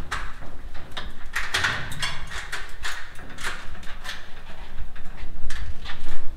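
Clicks and rattles of a lattice door being unlocked and pushed open, a string of short sharp knocks about a second apart.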